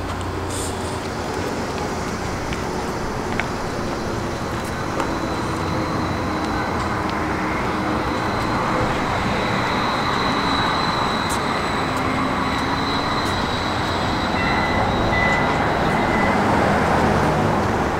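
Steady outdoor city traffic noise, a continuous even rush that grows a little louder toward the end.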